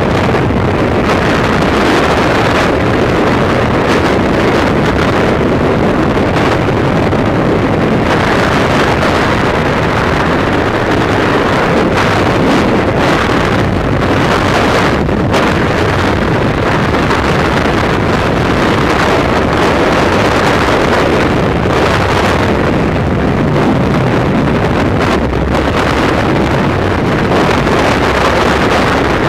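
Loud, steady rush of freefall wind blasting over a skydiver's camera microphone, with gusty buffeting.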